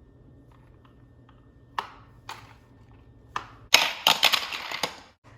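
Sharp plastic clicks from a Hot Wheels track set's launcher, then a die-cast Hot Wheels car rattling through the plastic track for about a second before the sound cuts off.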